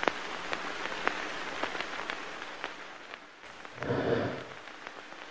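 Crackling surface noise in the style of an old film soundtrack: a steady hiss with scattered sharp pops, and a brief low, muffled swell about four seconds in.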